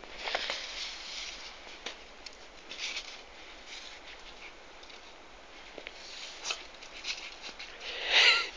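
Scattered soft crunching steps in thin fresh snow, with a short, loud, high-pitched wavering cry near the end.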